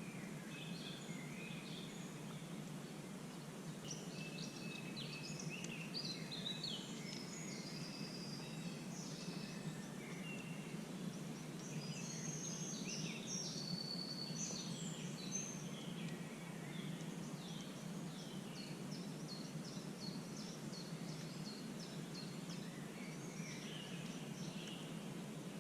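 Several birds chirping and calling over a steady low hum of background noise, the calls busiest through the middle.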